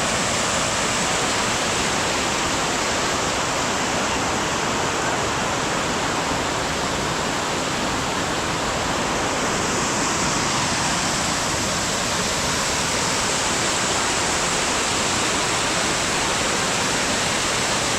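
A small waterfall's water cascading down onto rock: a loud, steady rushing that holds even throughout.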